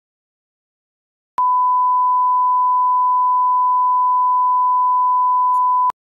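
1 kHz line-up test tone accompanying colour bars: one steady pure tone that starts with a click about a second and a half in and cuts off with a click near the end, after silence.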